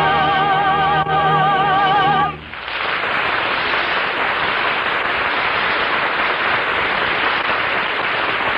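Last held note of an operetta song, sung with vibrato over the orchestra, ending about two seconds in. Studio audience applause follows.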